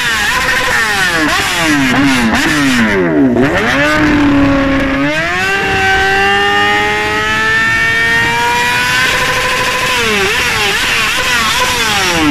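Sport motorcycle engine revved hard while standing still. It gives quick rising and falling throttle blips, then is held at high revs for about four seconds, then blipped again.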